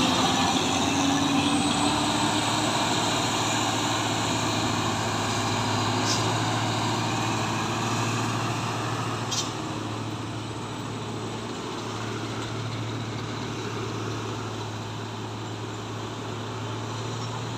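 Heavy diesel trucks climbing a steep hill: a steady deep engine hum under road and tyre roar, fading slightly as they pass. Two brief high clicks come at about six and nine seconds.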